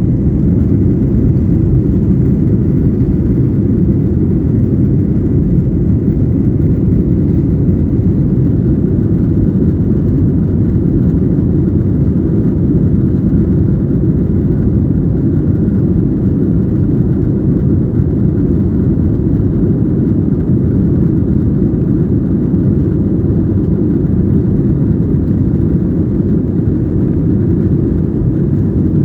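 Steady low rumble of an Airbus A320-214's CFM56 jet engines and rushing air, heard inside the passenger cabin. It swells slightly at the very start, then holds even.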